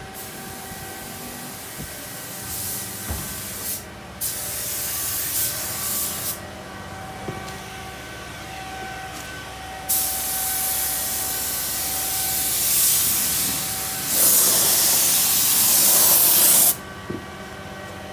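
Air spray gun hissing as it sprays paint onto a truck's cargo-bed gate. It comes in trigger pulls of different lengths, with a pause after about six seconds. The longest and loudest pull comes near the end and cuts off suddenly.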